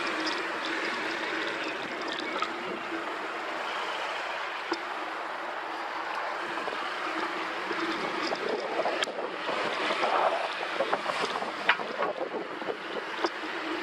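Steady rush of wind and tyre noise picked up by a handlebar-mounted camera on a moving bicycle, with scattered clicks and rattles from about eight seconds in.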